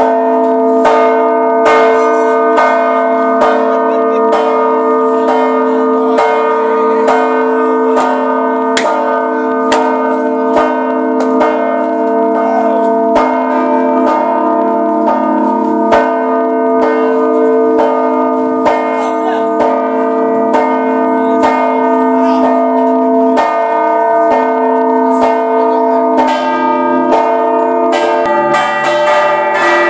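Church bells ringing in a fast, even run of strikes over their sustained hum, several bells together. The mix of bells changes near the end.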